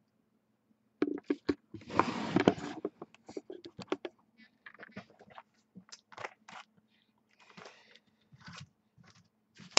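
Cardboard box of trading cards being handled: a dense scrape about two seconds in, then scattered rustles and clicks.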